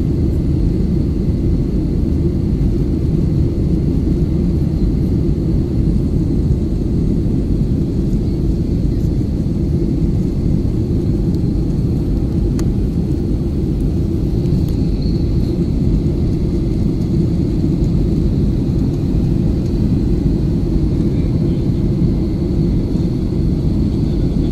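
Steady jet airliner cabin drone: engine and airflow noise heard from inside the passenger cabin, deep and even, with a faint steady high whine above it.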